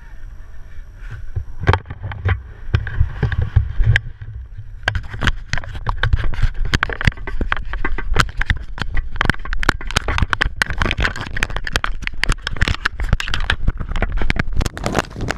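Handling noise on a worn action camera: dense clicking, knocking and rubbing against the microphone over a low rumble. It starts sparse and turns into a near-constant clatter about five seconds in.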